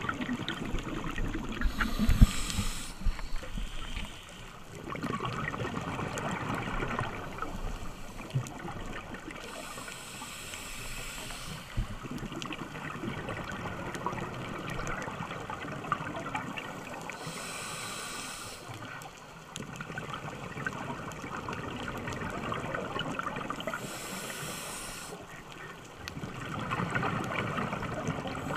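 Scuba diver breathing through a regulator underwater, four breaths in all: a short hissing inhale roughly every seven seconds, each followed by a few seconds of bubbling exhaled air.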